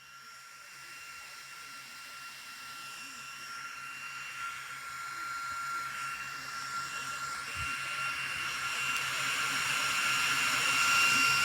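Small battery-powered portable fan running: a steady rush of air with a high, even motor whine, growing steadily louder throughout without changing pitch.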